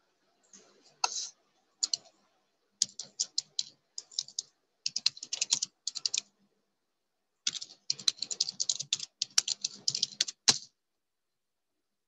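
Computer keyboard typing in quick runs of keystrokes with short pauses, stopping near the end.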